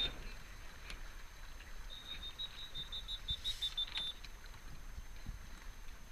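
Quiet wind and water noise aboard a Dart 18 catamaran under sail, with a high, fast-pulsing chirp lasting about two seconds in the middle.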